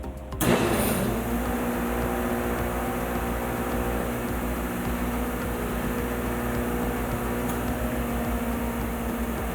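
16-inch four-knife jointer cutterhead, driven by a 5 horsepower electric motor, switched on about half a second in and then running steadily with a hum and a whir.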